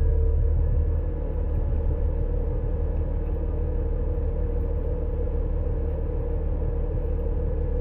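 Front-load garbage truck's engine running with a steady low rumble and a constant hum, heard from inside the hopper.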